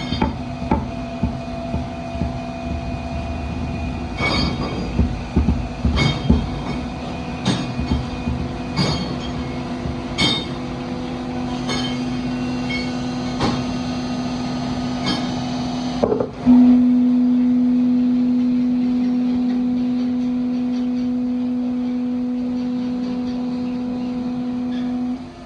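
Broaching machine running with a steady motor hum, with sharp metallic clanks every second or so. About sixteen seconds in the hum steps up sharply and holds for about nine seconds, fading slowly, then drops off near the end.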